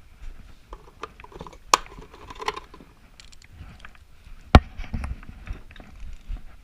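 Metal hand tools working on engine case screws: a run of small metallic clicks and ratcheting, with one loud sharp metal strike about four and a half seconds in.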